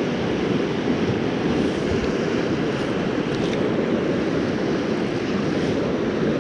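Steady rushing of a glacier-fed mountain river's current, an even wash of water noise with no let-up.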